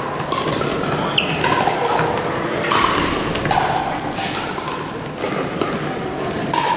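Pickleball rally: paddles striking the hard plastic ball in a series of sharp pocks, some seconds apart and some in quicker succession, echoing in a large hall.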